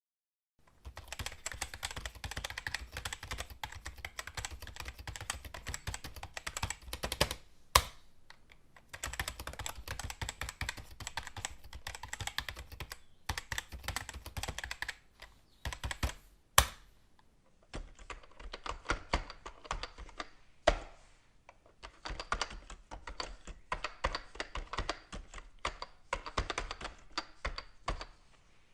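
Fast typing on a computer keyboard: dense runs of rapid key clicks broken by short pauses, with a few single louder key strikes standing out, about 8, 17 and 21 seconds in.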